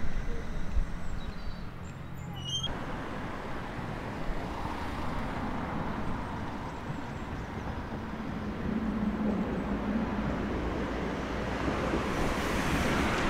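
Steady hum of street traffic, which fills out suddenly about two and a half seconds in.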